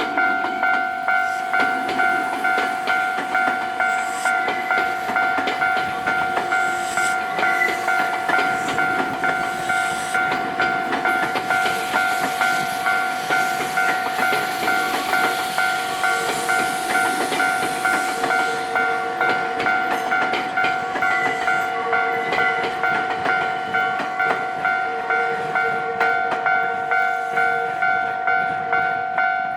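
Japanese level-crossing warning bell ringing in a steady, even rhythm, its tone unchanging. Midway a train passes over the crossing with a rush of wheel noise and clicking from the rail joints.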